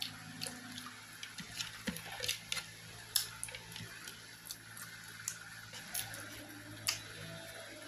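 Close-miked eating sounds: irregular wet mouth clicks and lip smacks of a person chewing, with fingers picking food off a plate, around fifteen sharp little clicks scattered through.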